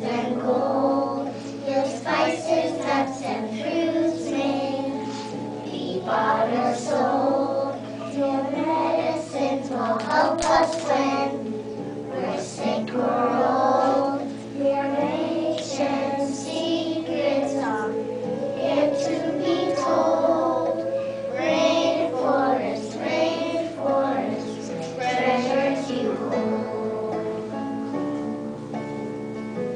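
A group of kindergarten children singing together, with steady instrumental accompaniment underneath.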